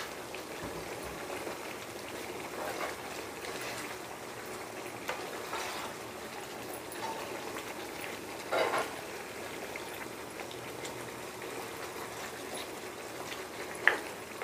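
Thick beef caldereta sauce simmering in a pan while a plastic spoon stirs and scrapes through the meat and vegetables. There are two louder knocks of the spoon against the pan, one past the middle and a sharper one near the end.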